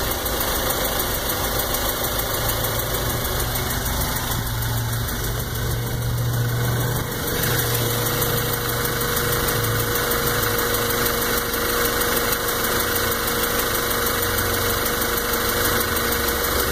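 Volkswagen GTI 2.0-litre turbocharged four-cylinder engine running steadily at about idle.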